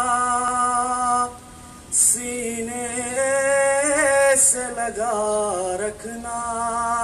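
A man singing a devotional Urdu tarana (a song in praise of a Sufi master) solo into a microphone, with no accompaniment. He holds long, steady notes, breaks off for a breath about a second and a half in, then sings ornamented, wavering notes.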